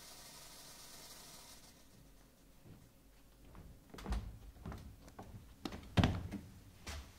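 Stage fog machine hissing, cutting off about a second and a half in. Then a run of dull thumps and knocks, the loudest two about two seconds apart.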